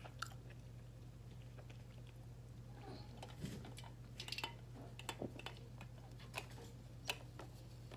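Faint close-up chewing of a mouthful of pizza, with scattered small wet mouth clicks that cluster a few seconds in and come again later, over a steady low hum.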